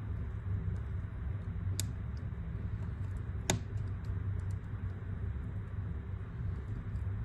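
Wood fire crackling in a fireplace: a steady low rumble of burning logs with scattered faint ticks and two sharp pops, the louder one about three and a half seconds in.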